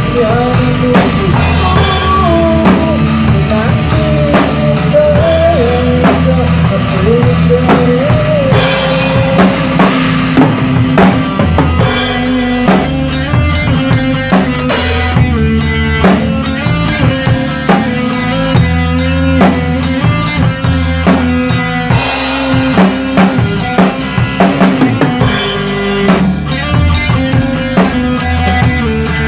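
Acoustic drum kit played in a steady groove, with bass drum, snare and cymbal strokes, along to a backing song with bass notes and a lead melody.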